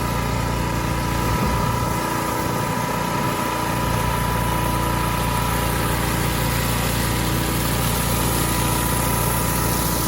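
Pressure washer running steadily: engine drone under a constant hiss of high-pressure water spray.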